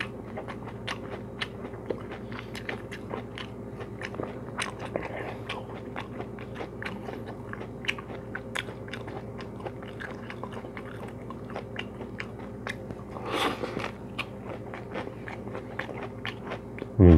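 Close-up chewing of a lettuce wrap with crispy roast pork skin: a steady run of small crunches and wet mouth clicks, with one louder, longer noisy moment about thirteen seconds in.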